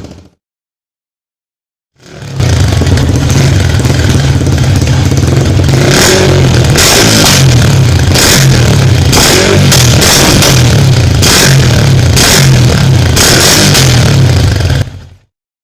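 Yamaha R15 V3's single-cylinder engine running through an aftermarket slip-on exhaust, starting about two seconds in and cutting off near the end, with a series of quick rev blips in the middle.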